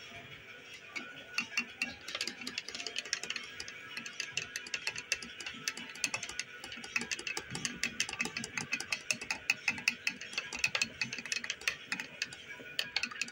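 Metal teaspoon stirring coffee in a ceramic mug, clinking rapidly and irregularly against the mug's sides, starting about a second in.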